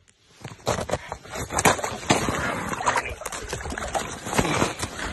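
Water splashing and sloshing in an ice-fishing hole as a walleye is hauled up through it by hand, with irregular knocks and scrapes against the slushy rim. It starts under a second in, after a moment of quiet.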